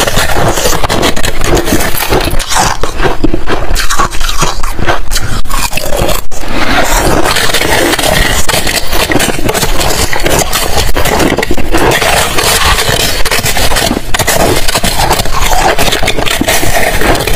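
Metal spoon scraping and shaving a large ball of balloon-frozen ice, in loud, rapid, continuous scraping strokes with a short pause about six seconds in.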